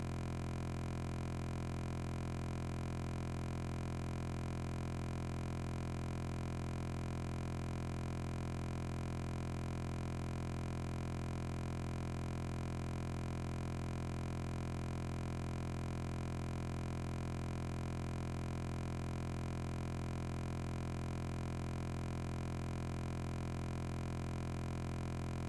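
A steady, unchanging electronic hum made of many fixed tones, strongest in the low range, holding the same level throughout.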